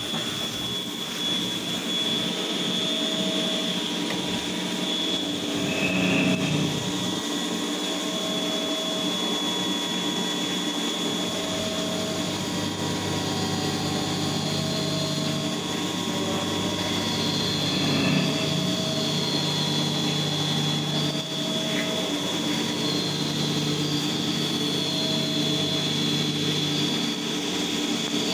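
Vertical machining centre cutting a metal shaft turned on its fourth-axis rotary table, with a steady high spindle whine and flood coolant splashing over the work. A shorter, lower tone comes and goes every second or two as the machine works.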